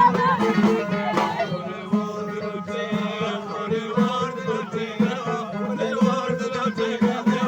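Traditional Moroccan folk music played live: a steady low drone under melodic instrument lines, with a regular percussive beat and a little singing.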